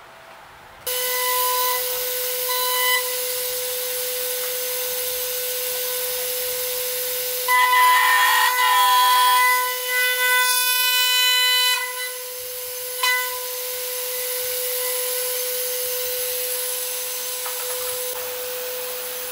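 CNC router spindle whining at a steady high pitch, starting about a second in. It grows louder, with added cutting noise, about halfway through as the end mill cuts into the wood.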